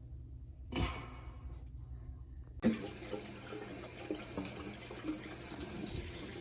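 A knock, then a kitchen tap turned on about two and a half seconds in, water running steadily from it as the dishwasher's chopper assembly is rinsed of debris.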